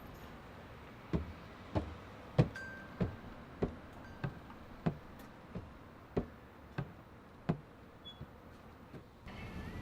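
A series of about a dozen dull knocks, evenly spaced at roughly one and a half per second, thinning out to a few faint ones near the end.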